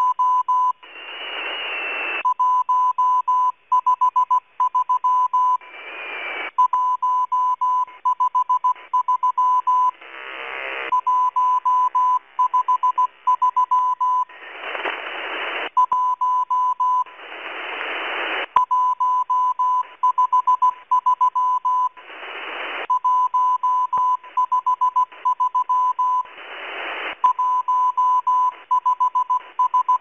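Morse code from the Russian M12 numbers station on shortwave, heard through an upper-sideband receiver as a keyed tone of about 1 kHz. It sends its repeated callup "153 153 153 1", the lone "1" signalling that a real message will follow. In each pause between groups, a hiss of band noise swells up.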